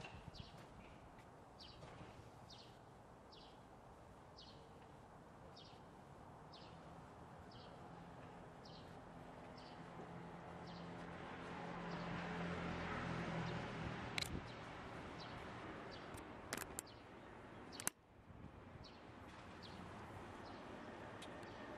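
Outdoor ambience: a bird gives short, high chirps over and over, about one or two a second. A low engine hum swells through the middle and eases off, and a few sharp clicks come near the end.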